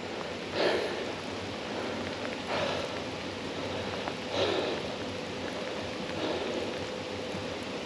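River water running steadily, with four soft splashes about two seconds apart.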